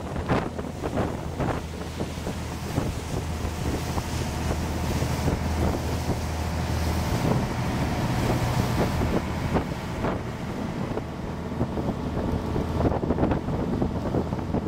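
Small ferry boat under way: its engine drones steadily, with wind buffeting the microphone and the rush of water from the wake.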